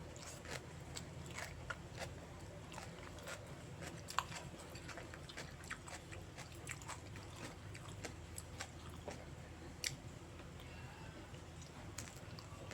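Close-miked eating of stir-fried noodles with beef: irregular wet chewing and biting clicks, with a couple of sharper clicks about four and ten seconds in, over a steady low hum.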